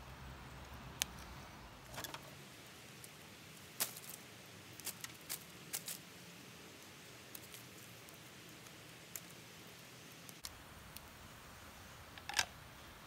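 Scattered sharp clicks and light knocks from a small metal can hobo stove: split kindling sticks clattering into it and the wood fire beginning to crackle, several clicks bunched a few seconds in and the loudest near the end.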